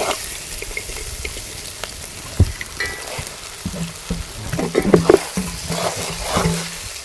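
Dried anchovies frying in oil with an onion-tomato masala in a pan: a steady sizzle, with scattered scraping clicks from stirring.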